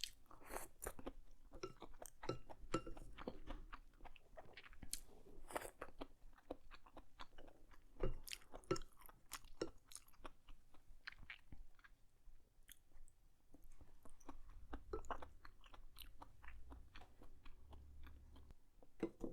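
Close-up chewing of noodles, mushrooms and shrimp, irregular wet smacks and soft crunches.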